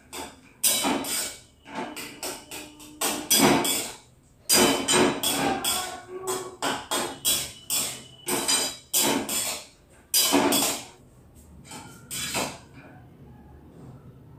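Metal spatula scraping and knocking against a metal kadai, stirring and scooping out cooked potatoes: a quick, irregular run of clanks and scrapes with a light metallic ring, which stops near the end.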